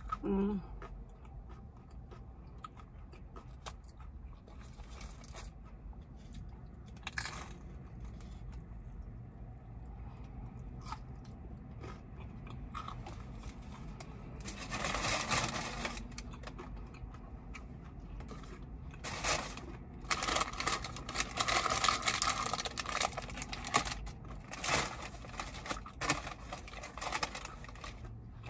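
Close-up eating sounds: chewing a sourdough burger and curly fries, with louder bursts of crunching around the middle and through much of the second half.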